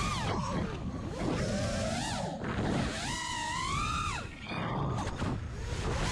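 5-inch FPV freestyle quadcopter's brushless motors (Hyperlite 2207.5 2550kv) and two-blade props whining, the pitch sweeping up and down with the throttle: a long high climb about three seconds in that drops away just after four seconds. Wind rush on the onboard GoPro's microphone underneath.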